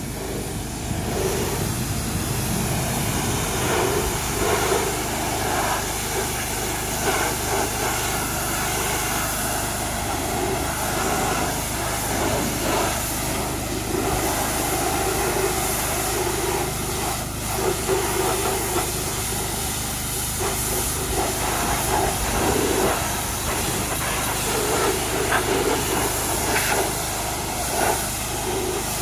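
Pressure washer running, its spray hissing steadily against a truck cab and surging louder and softer as the jet moves, with a steady motor drone underneath.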